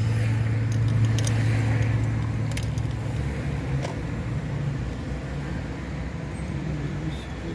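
Chevrolet Onix driving, heard from inside the cabin: a steady low engine hum and road noise that slowly eases off, with a few faint clicks.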